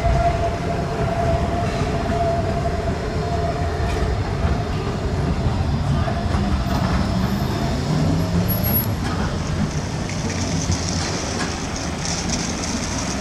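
City trams running past on street track: a continuous low rumble with a steady whine that fades over the first few seconds, and a short rising tone about eight seconds in.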